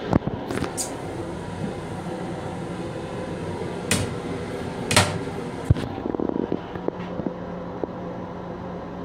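Plastic toilet lid in a commuter rail car restroom being lifted open, giving several sharp clacks; the loudest come about four seconds in and again a second later. A steady hum runs underneath.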